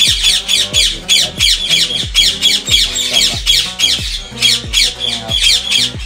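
Ringneck parakeet giving rapid, repeated harsh screeches, about three a second, over background music with a low beat.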